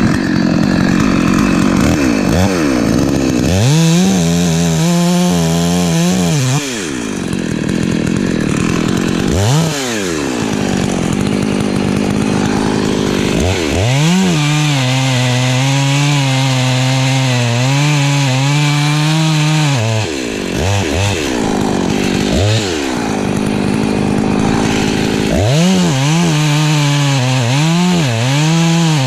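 Husqvarna 254 two-stroke chainsaw revved up and held at high speed three times for a few seconds each, with short blips of the throttle between, dropping back to a lower idle in the gaps.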